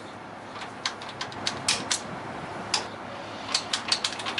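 Irregular sharp metallic clicks and clinks of hand tools and engine parts being handled, about a dozen over a few seconds, with a cluster near the end.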